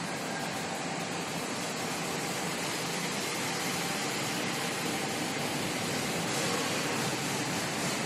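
Steady machinery noise: an even hiss with a few faint steady tones.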